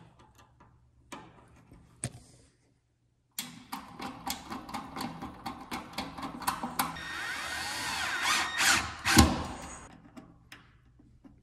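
A screw being driven into the sheet-metal housing of a furnace blower with a screwdriver: a quick run of clicks, then a rising grinding whirr, and a sharp knock about nine seconds in.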